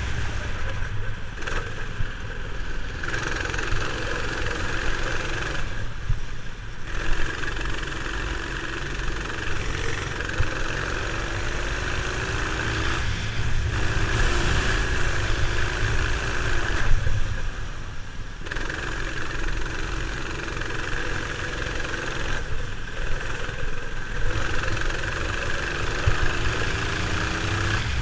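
Go-kart engine, heard onboard, running under throttle on a wet track. Its note drops away about five times and climbs again, with wet tyre and road noise underneath.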